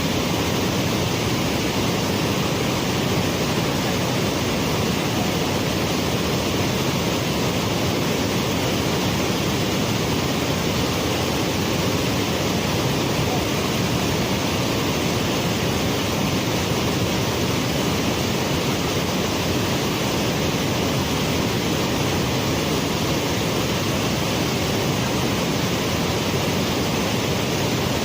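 Waterfall rushing steadily, a loud, even noise of falling water with no change.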